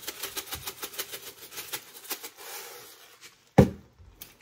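Hand-twisted seasoning grinder cranked over a skillet, a rapid even clicking of about seven clicks a second for the first two seconds. A loud sharp knock comes about three and a half seconds in, with a smaller click just before the end.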